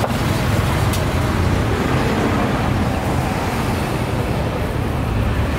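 Steady road-traffic noise: a low, continuous rumble of vehicle engines under a general outdoor din, with a single sharp click about a second in.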